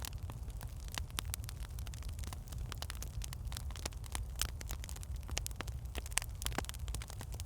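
Wood fire burning in a fireplace: irregular sharp crackles and pops from the logs, several a second, over a steady low rumble.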